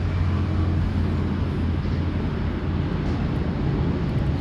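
Steady road traffic: a low rumble of cars driving past.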